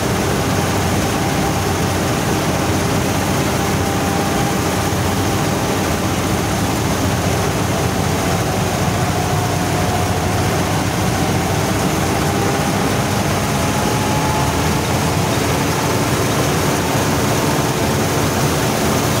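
Władimirec T-25 tractor's two-cylinder air-cooled diesel engine running steadily under working load, heard from the driver's seat, while it drives a reaper cutting wheat.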